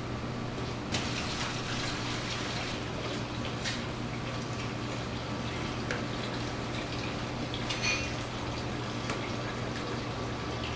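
Commercial kitchen background with a steady low ventilation hum. About a second in there is a brief hiss of running water, and a few soft knocks and slaps follow as yellowtail fillets are handled and laid on a wooden cutting board.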